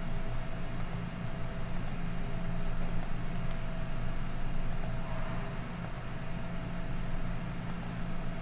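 Several faint computer mouse clicks, irregularly about a second apart, as sketch lines are clicked to trim them, over a steady low electrical hum.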